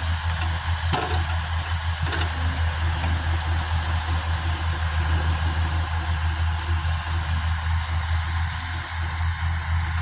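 JCB 3DX backhoe loader's diesel engine running steadily while the backhoe arm works the bucket, with a brief knock about a second in.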